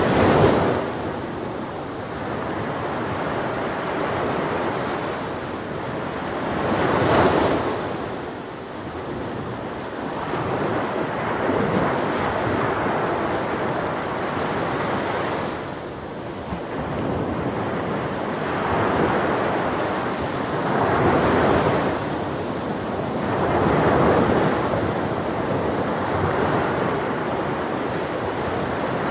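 Ocean waves breaking and washing on a beach, the surf swelling and falling every few seconds, with some wind noise on the microphone.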